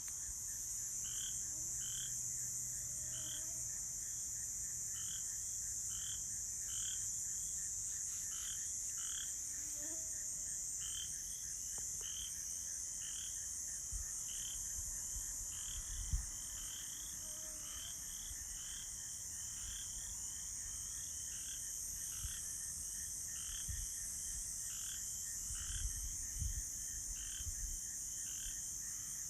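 A chorus of crickets and frogs: a steady high insect trill under frogs calling over and over, more than once a second. A few low thumps around the middle and near the end.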